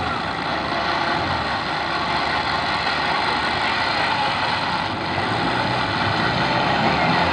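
Engine of an off-road 4x4 running steadily while wading through deep floodwater, growing a little louder near the end.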